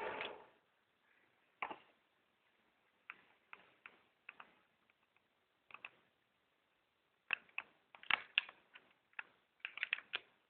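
Irregular clicks and light taps from handling a BlackBerry Storm smartphone and its packaging, opening with a brief rustle, then sparse single clicks, with tighter clusters of clicks near the end.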